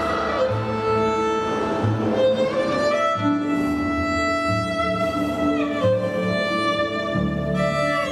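Slow, sustained violin melody over low held string notes, with the violin sliding down in pitch about six seconds in.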